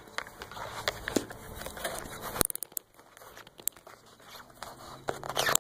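Rubbing and irregular clicks of a cell phone being handled and zip-tied to a metal antenna mast, heard close on the phone's own microphone, with a run of clicks about halfway through and a louder knock near the end.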